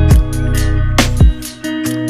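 Background music: an electronic track with deep kick-drum thumps, heavy bass and plucked guitar-like notes over a steady beat.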